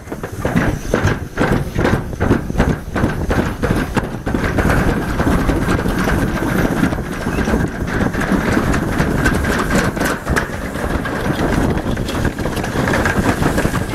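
Toboggan sled running fast down a stainless steel chute: a continuous rumble in the metal trough, with rhythmic clacking, about two or three a second, for the first few seconds, then a steadier rumble with a faint high whine.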